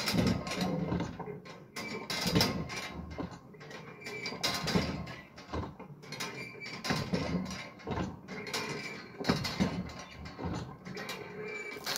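Irregular handling noise: short knocks, clicks and scrapes of gear being worked by hand, coming every half second to a second.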